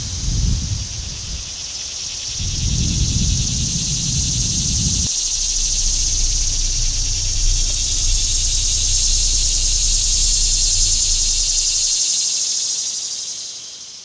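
A chorus of cicadas buzzing steadily in summer trees, swelling a little midway and then fading out near the end. A low rumble underlies the first few seconds and stops suddenly.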